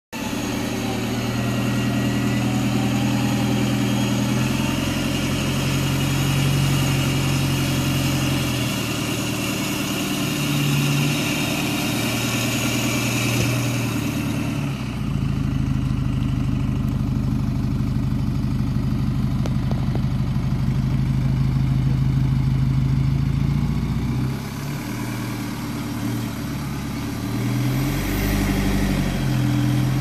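Chevrolet Colorado ZR2 pickup's engine running at low revs as the truck crawls over a rock ledge, its note changing several times as throttle is fed in and eased off.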